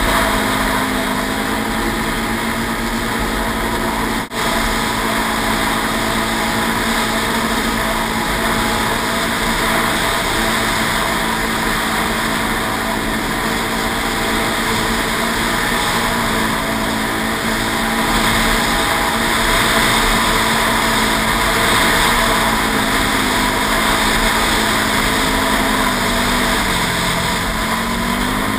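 Can-Am Renegade 800 XXC ATV's V-twin engine running under way, its pitch rising and falling a little with the throttle, under a steady rushing noise. The sound drops out briefly about four seconds in.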